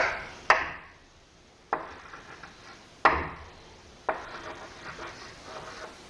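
Chalk writing on a chalkboard: about five strokes, each opening with a sharp tap of the chalk against the board and trailing off into a scratchy scrape.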